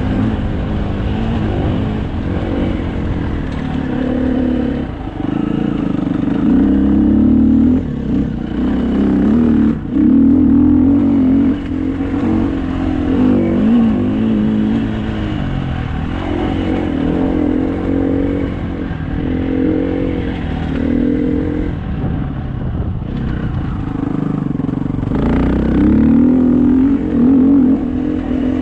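Dirt bike engine running on a trail ride, its pitch rising and falling as the throttle is opened and closed, with several louder stretches of acceleration.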